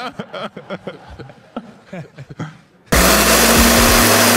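Electric blender switched on about three seconds in, then running steadily and loudly as it grinds Takis rolled tortilla chips into crumbs for breading. Before it starts there are only a few small handling clicks.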